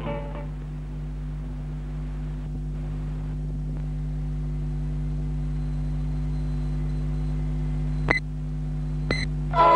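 A steady low electrical hum with a buzzing edge, unchanging throughout, broken by two sharp clicks about a second apart near the end.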